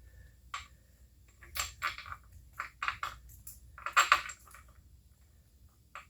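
Steel bolts clinking and clattering as they are handled and picked through, in short bursts of small metal-on-metal knocks, the loudest cluster about four seconds in.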